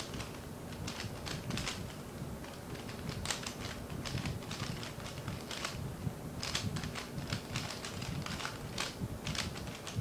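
Dayan ZhanChi 3x3 speedcube being turned at speed during a timed solve. The layers make rapid, irregular clicking in quick runs, with brief pauses between runs.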